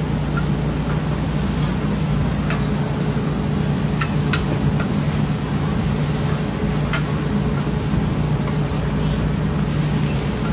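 Steady low hum and hiss of a street-food stall's cooking equipment at the oyster-omelette griddle, with about five sharp clicks of a metal spatula on the griddle.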